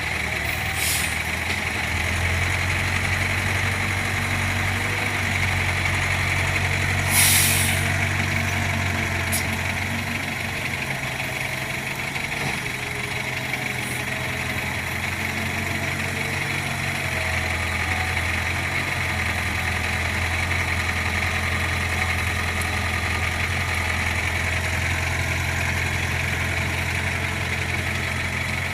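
Diesel engine of a Volvo 55W wheeled excavator running steadily, its hum swelling and easing as the load changes. There is one short, sharp hiss about seven seconds in.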